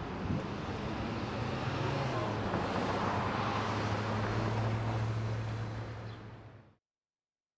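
City street traffic: a steady wash of passing vehicles with a low engine hum. It fades and cuts off about a second before the end.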